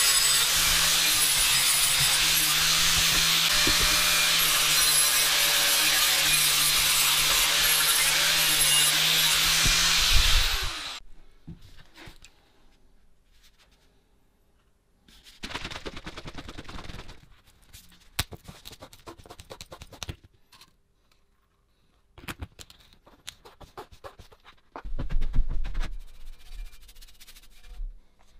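Angle grinder running steadily against the rusty steel tank of an old flame gun, stripping the rust, then switched off about 11 seconds in and winding down. Later come a few short bouts of quieter rubbing.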